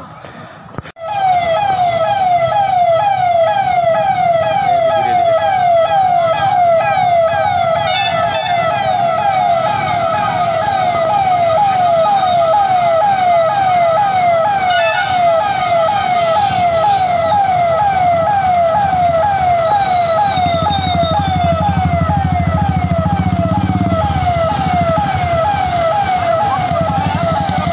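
Police vehicle siren through a roof loudspeaker, sounding a fast repeating falling sweep, about two and a half sweeps a second, starting about a second in. A low engine and traffic rumble grows beneath it near the end.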